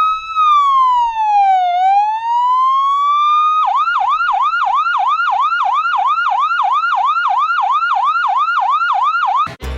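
A police-style siren sounding a slow rising and falling wail, then switching to a fast yelp of about three whoops a second a few seconds in.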